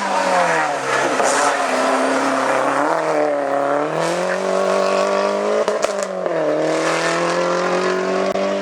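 Hillclimb race car engine under hard acceleration, its pitch climbing and dropping several times as it shifts through gears and lifts for corners. A couple of sharp cracks about six seconds in.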